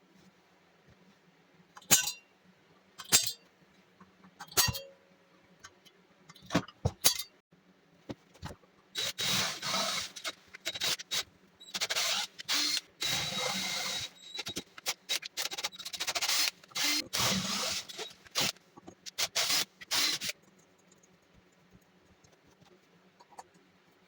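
Workshop work on a home-made belt sander: a few sharp knocks, then about ten seconds of stop-start rasping and scraping as parts are worked, over a faint low hum.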